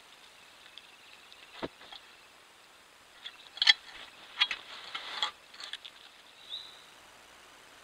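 Pine marten at the trail camera, scratching and knocking against the camera housing: a single sharp scrape about one and a half seconds in, then a cluster of loud scrapes and knocks from about three to six seconds in.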